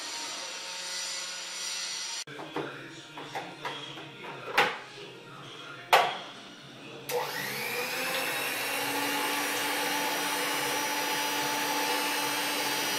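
Electric mixer beating cake batter: it runs steadily, then gives way to a few seconds of knocks and clatter with two sharp bangs, before the mixer starts again about seven seconds in, its motor whine rising to speed and holding steady.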